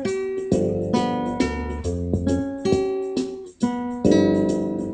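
Acoustic guitar strummed in a steady rhythm, about two chords a second, each chord ringing on until the next.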